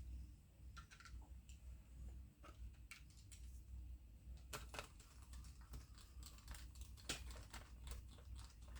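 Faint, irregular clicks and ticks of small screws, a driver and plastic parts being handled while an RC car chassis is screwed together. The clicks come more often in the second half.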